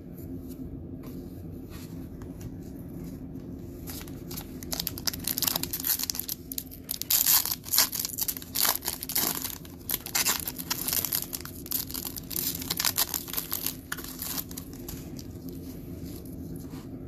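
Foil trading-card pack wrapper being torn open and crinkled by hand. The dense run of crinkling starts about four seconds in and goes on for about ten seconds.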